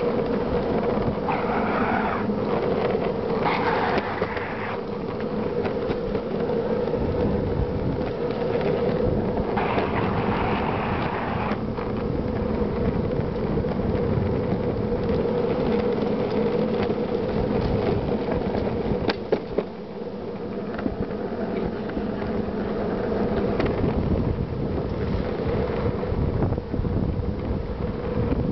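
Large skateboard's wheels rolling downhill over rough asphalt, heard from on the board: a steady rolling noise with a constant hum. It dips briefly about two-thirds of the way through, with a single click.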